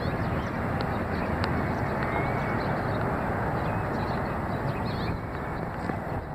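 Steady background traffic noise, with faint short chirps of small birds over it.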